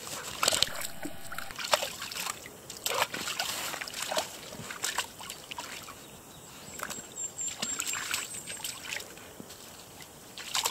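Dogs splashing and sloshing in a shallow muddy puddle, with irregular splashes as a dog lies and rolls in the water and others wade in it.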